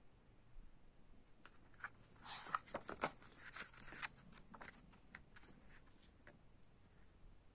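A paper CD booklet page being turned by hand: a rustle of paper with several sharp crinkles about two to four seconds in, and only faint handling noise otherwise.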